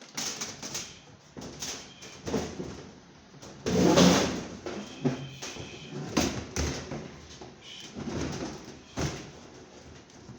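Irregular clunks, knocks and scrapes of washing-machine parts being handled during disassembly or reassembly, with a heavy thump about four seconds in.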